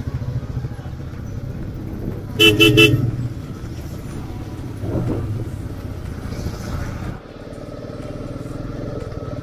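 Motorcycle engine running steadily under way. A vehicle horn sounds a short burst of quick toots about two and a half seconds in.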